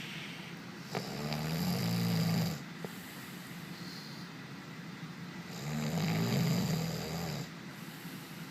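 A man snoring: two long, loud snores about four and a half seconds apart, each lasting around one and a half to two seconds, with quieter breathing between.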